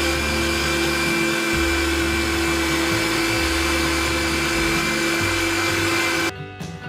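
Electric meat grinder running steadily with a constant motor whine as it minces raw chicken breast, cutting off suddenly about six seconds in.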